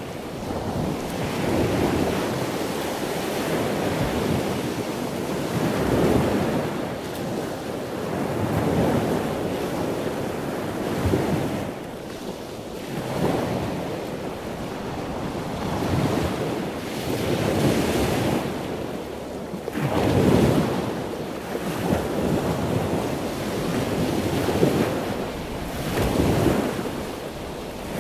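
Ocean surf breaking and washing up a sandy beach, rising and falling in swells every two to three seconds, with wind on the microphone.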